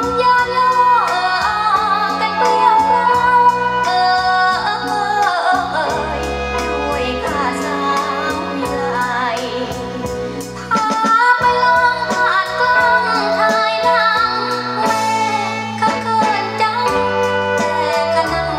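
A Thai luk thung song with a woman singing, backed by a band with a steady beat, played back over a hi-fi system's floor-standing loudspeakers.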